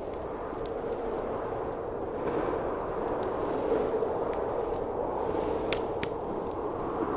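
Howling blizzard wind, swelling a little in the middle, with the scattered sharp pops and crackles of a wood fire burning in a fireplace.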